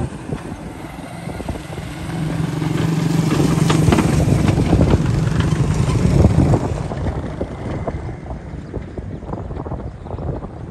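Diesel engine of a large cargo truck passing close by. Its steady running note grows to its loudest about four to six seconds in, then drops away as the truck pulls off, with knocks and rattles from the truck throughout.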